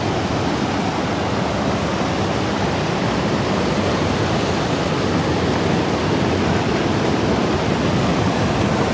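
River water rushing over rock slabs and through rapids, a steady rush of white water.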